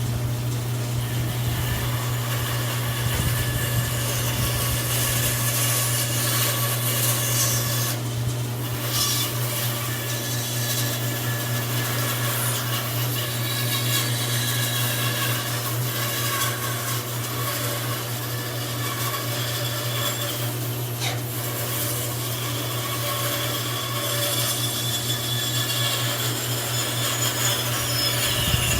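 Bandsaw cutting a wooden spoon blank: a steady motor hum under the rasp of the blade through the wood, which eases briefly about eight seconds in.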